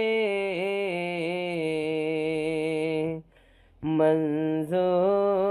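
A man singing a naat unaccompanied, drawing out a long ornamented line with wavering held notes. He breaks off for a breath about three seconds in, then takes up the line again.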